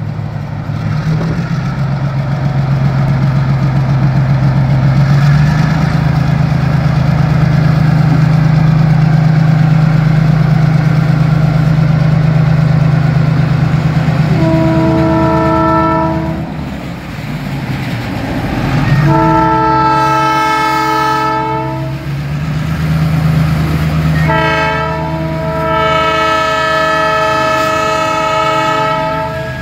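EMD SW1200 switcher locomotive's 12-cylinder diesel engine running with a steady low drone as it rolls past. Its multi-chime horn sounds three blasts partway through: a short one, then two long ones, warning at a street crossing.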